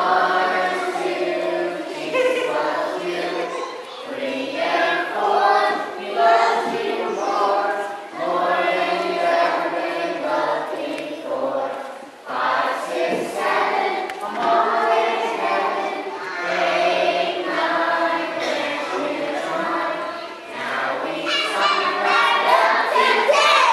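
A group of young children singing a counting song together, over low accompaniment notes that step from pitch to pitch.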